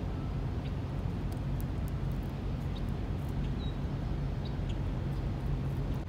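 Steady low outdoor rumble, with a few faint, short high chirps from small birds scattered through it, one a little past the middle.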